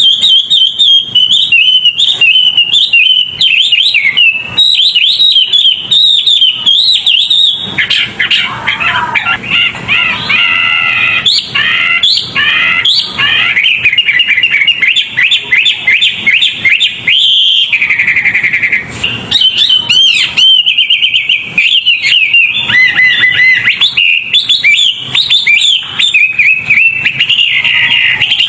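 A songbird singing without pause in fast, tightly packed phrases of quick chirps and trills, with a brief steadier note about two-thirds of the way through.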